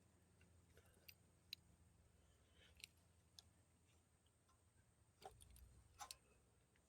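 Near silence, broken by a few faint, scattered small clicks and taps, the two most distinct about five and six seconds in.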